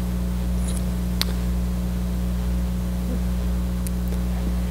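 Steady electrical mains hum with hiss, with a single short click about a second in.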